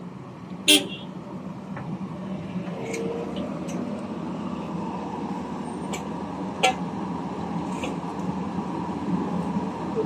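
Crawler excavator's diesel engine running steadily, with two sharp metallic clanks from the tracks and undercarriage, a loud one about a second in and another near seven seconds.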